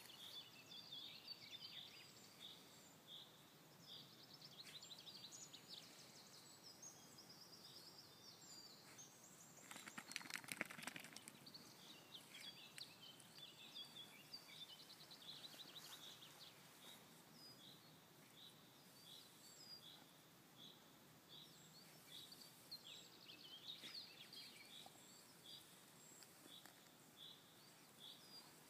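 Faint birdsong: many short, repeated chirps and calls from several birds. A brief rustling scuffle about ten seconds in is the loudest sound.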